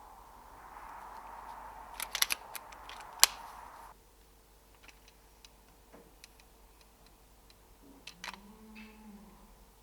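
A .22 Kral Puncher K PCP air rifle: a few quick clicks of its action, then a single sharp, suppressed shot a little over three seconds in. More mechanical clicks come near the end as it is handled again.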